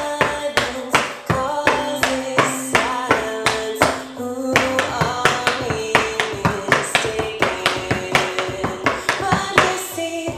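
A slow song with a woman singing, and the sharp clicks of metal-tipped tap shoes striking a wooden tap board in time with it.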